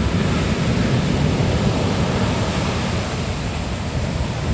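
Ocean surf: waves breaking and washing ashore, a steady, loud rushing noise.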